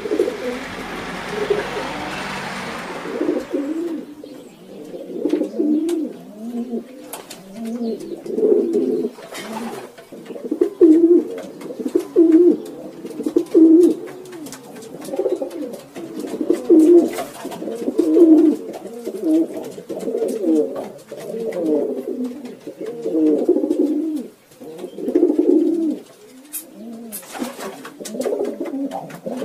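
Pigeons cooing, low repeated coos following one another and overlapping without a break. A steady hiss lies under the first few seconds.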